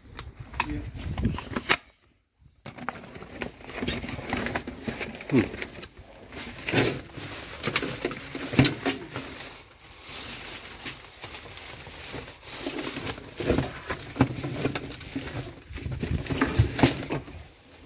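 Thin plastic shopping bags rustling and crinkling while things inside them are rummaged through and handled, with scattered light clicks and knocks. The rustling stops briefly about two seconds in.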